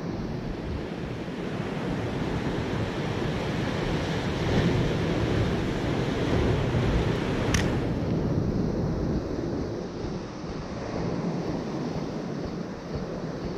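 Sea surf breaking and washing against the rocks below, with wind buffeting the microphone. A single sharp click sounds about halfway through.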